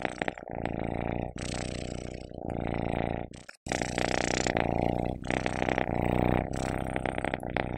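Domestic cat purring steadily as its chin and cheeks are scratched, the purr pulsing in cycles of about a second with each breath in and out. It cuts out briefly about three and a half seconds in.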